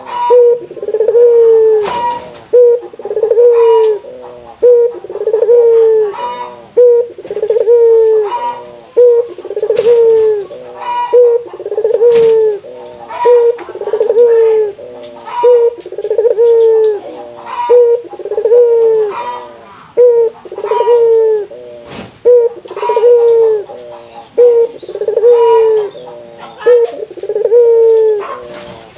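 Puter (ringneck dove) cooing over and over: a loud, evenly repeated coo about every one and a half seconds, each bending down in pitch and then back up. A few sharp clicks come in between the calls.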